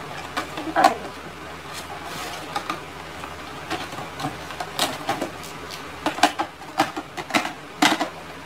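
Irregular light clicks and clatter of plastic makeup compacts and packaging being handled and set down, with the sharper clicks coming closer together in the second half.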